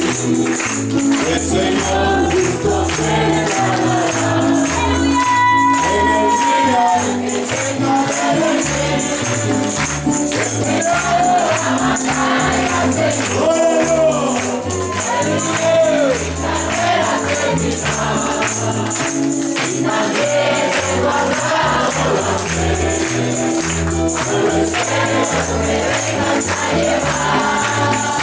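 Live congregational worship song: a group of voices singing with electric guitar and keyboard, a low bass line moving on the beat, and hands clapping in time.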